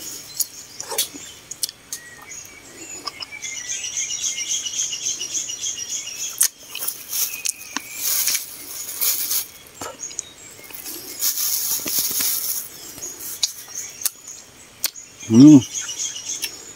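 Small clicks and smacks of someone eating fruit in a tree, with leaves rustling now and then. A bird chirps in a fast, high trill from about three to seven seconds in, and a short hum from the eater near the end is the loudest sound.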